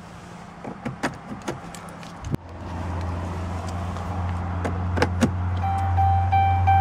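The 2011 Ram 2500's 6.7-litre Cummins inline-six turbodiesel idles with a steady low drone while keys click and jingle going into the ignition. About two seconds in the sound briefly dips, and the idle drone comes back louder. From about five and a half seconds a dashboard warning chime beeps over and over, about three times a second.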